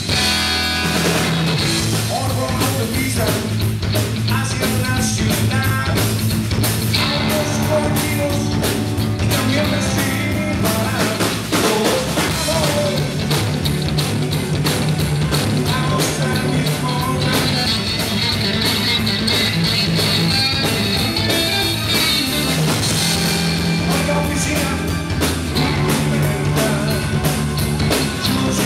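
Live rock band playing a loud, steady song: electric guitar, bass guitar, drum kit and keyboards.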